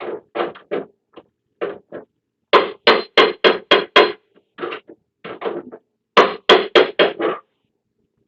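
Hammer blows on the steel sheet metal of a van's dented rear door, panel-beating the dent out. The strikes come in quick runs of about four a second, the longest run of about seven, with short pauses between runs.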